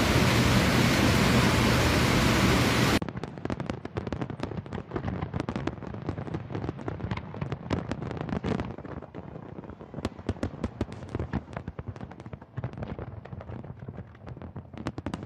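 A steady, loud rushing noise that cuts off about three seconds in. Then comes the dense crackling and popping of a fireworks display: many rapid sharp pops, thinning out toward the end.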